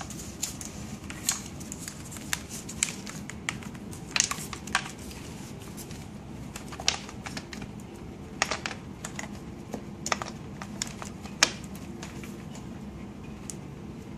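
Plastic tubing and connectors of a CRRT blood-line set being pressed by hand into the machine's tube guides and clamps: irregular sharp clicks and taps over a steady low hum.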